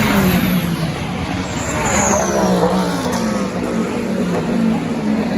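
Race cars passing close at speed one after another, each engine note dropping in pitch as it goes by. A high whine falls in pitch about two seconds in.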